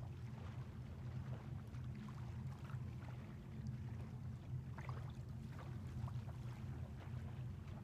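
Small waves lapping faintly at a sandy shoreline, with scattered little splashes over a steady low hum.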